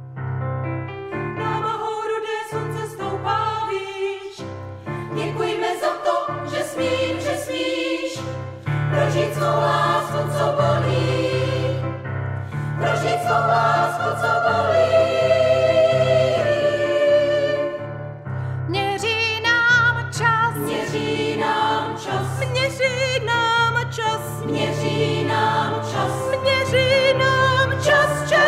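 Women's choir singing, with vibrato in the voices, over sustained low accompaniment notes.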